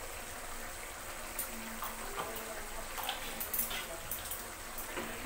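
Paneer curry gravy simmering in a pan on a gas stove: a steady hiss with scattered small pops and clicks.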